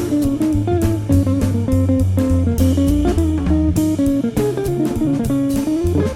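Background music: a guitar-led instrumental with a stepping melody over bass guitar and a steady drum beat.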